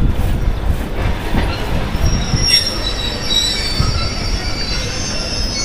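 Passenger train's wheels squealing on the rails as it pulls slowly into the station. There is a steady low rumble throughout, and about two seconds in several thin, high squealing tones join it and hold on.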